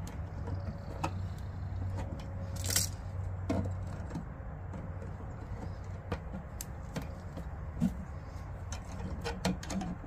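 Bare copper ground wires being twisted together with pliers: small scattered metallic clicks and scrapes, one a little sharper about three seconds in, over a steady low hum.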